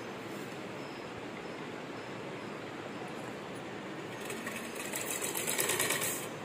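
Black straight-stitch sewing machine stitching fabric, running steadily, with a louder stretch of stitching from about four seconds in that lasts about two seconds.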